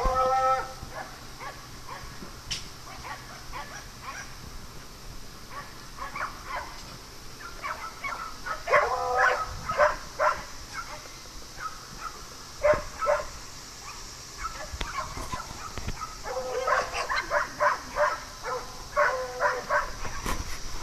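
Playing dogs barking in short bouts, near the start, around the middle and again towards the end, with quieter stretches between.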